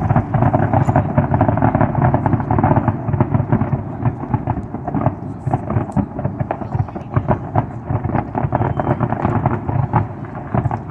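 Fireworks going off in a dense, continuous run of pops and bangs over a low rumble.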